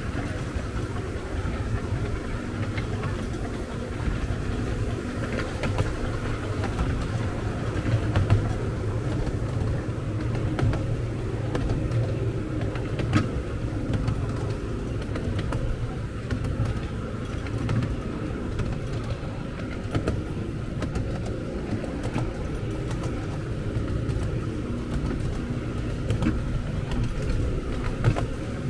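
Miniature railway train running on its track: a steady low rumble with scattered sharp clicks.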